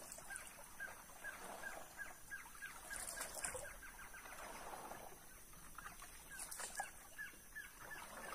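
A wooden canoe paddle dipping and pulling through river water with a swish roughly every three and a half seconds, while a bird calls a long string of short, evenly spaced notes, about three a second.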